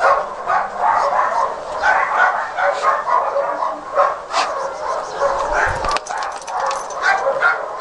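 A dog whining and yipping over and over, a few short cries a second. There is a brief clatter about six seconds in.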